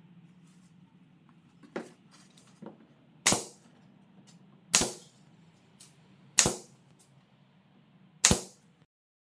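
Pneumatic nail gun firing four times, sharp shots about one and a half to two seconds apart, after two lighter knocks as the nailer is set against the wood.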